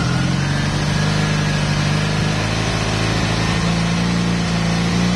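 1994 Honda Magna's V4 engine running at raised revs while the stator's AC output is measured, its note stepping up around the start and rising a little again near the end, then holding steady.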